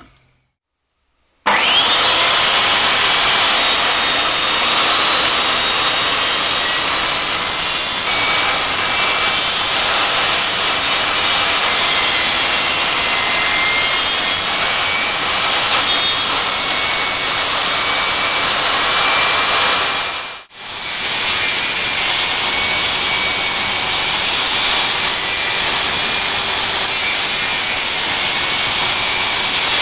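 Wood lathe running with a tool cutting the spinning wood of a new soldering-iron handle: a steady noise over a faint motor whine. It breaks off briefly about twenty seconds in, then carries on.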